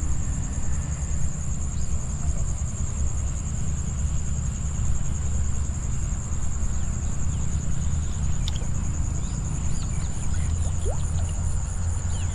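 Insect chorus: a continuous high-pitched trill with a faint even pulse, over a steady low rumble.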